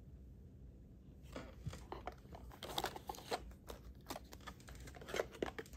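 Foil trading-card wrappers crinkling and a cardboard card box rustling as hands dig out packs: a run of soft, irregular crinkles and taps starting about a second in.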